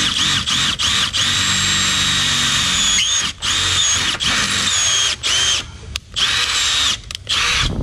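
Cordless brushless drill running in high gear with a 1/4-inch bit, boring a hole through the car's body metal. Its high whine sags in pitch as the bit bites and it runs in several bursts with short stops.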